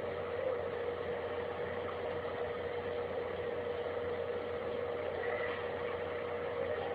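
A steady droning hum with one held tone throughout and no changes in pitch or level.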